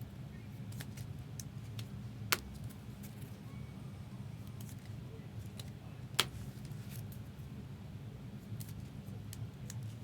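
Trading-card packs and cards being handled: scattered light clicks and taps, with two sharper clicks about two and six seconds in, over a steady low hum.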